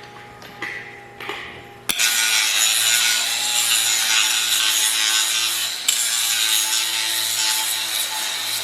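Angle grinder grinding steel: a loud, steady abrasive rasp with a high whine that starts abruptly about two seconds in, briefly lifting off near six seconds and then carrying on.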